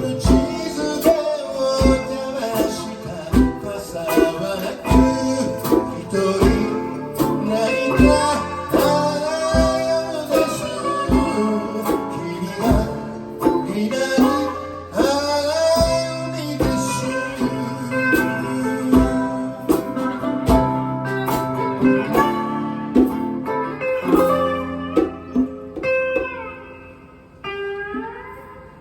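Live blues-rock band playing an instrumental stretch: guitar lead over bass and a steady drum beat. About 26 s in the band drops back and leaves a few bent, sliding guitar notes.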